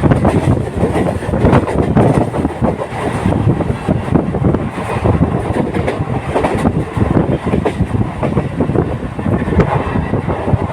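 Indian Railways local passenger train running at speed, its wheels clattering and knocking over the track with constant rattling.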